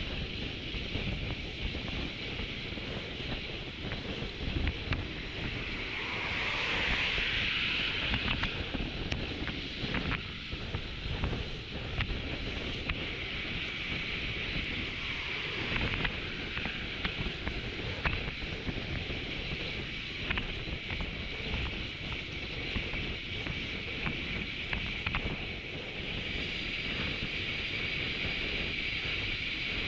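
Wind buffeting the microphone of a camera on a road bike moving at about 40 km/h, a steady rumbling rush throughout. About seven seconds in there is a brief swell as an oncoming van goes by.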